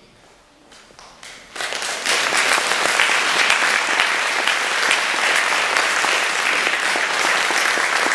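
Audience applauding: a few scattered claps about a second in, then full, steady applause from about a second and a half on.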